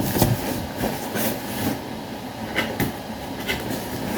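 A parcel box and its packaging being handled and opened: irregular rustling and crinkling with short clicks and knocks.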